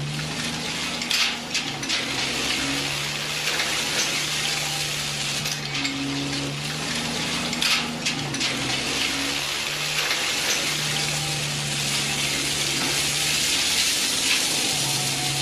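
An excavator at work: its diesel engine runs with its pitch stepping up and down every few seconds, over a steady hiss, with a few brief knocks.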